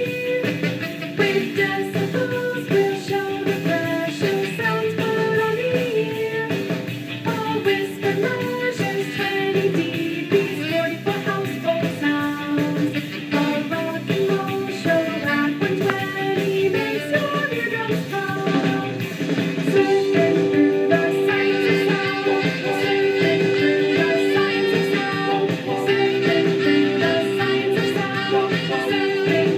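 Rock-and-roll style song: singing over guitar and band accompaniment, with a long held note from about two-thirds of the way through.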